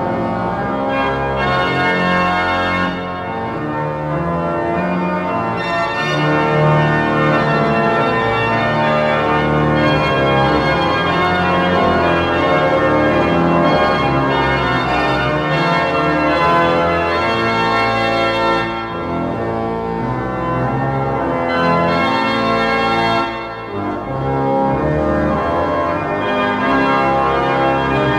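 Pipe organ of the Oude Kerk in Delft playing a hymn arrangement in full, sustained chords over a deep bass, with brief breaks between phrases three times.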